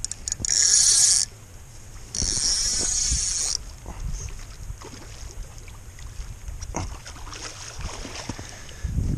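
Fishing reel drag buzzing in two runs, about a second and then a second and a half long, as a hooked steelhead takes line.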